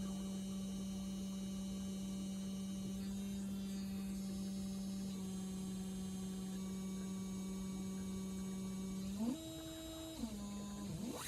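Novation Peak synthesizer holding one steady, low, buzzy note rich in overtones. Near the end the pitch jumps up for about a second, drops back, then the note cuts off.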